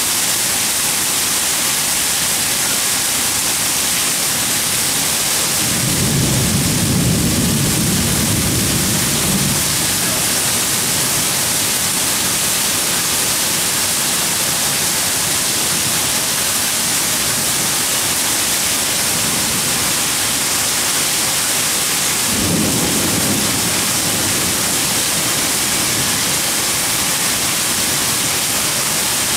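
Heavy rain falling in a steady hiss during a thunderstorm. Thunder rumbles twice: a roll of a few seconds starting about six seconds in, and a shorter one a little after twenty-two seconds.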